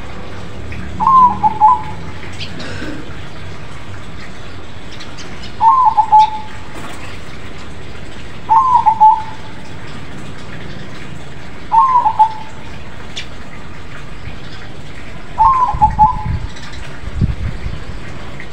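Crossbred perkutut (zebra dove) singing its loud cooing song: five short phrases of quick bubbling coos, about three to four seconds apart.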